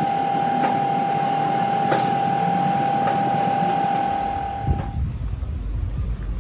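Compressed-air paint spray gun spraying red-oxide (zarcão) primer onto a steel table frame: a steady hiss of air with a high whistle, which stops suddenly about five seconds in. After it, a low rumble and a knock.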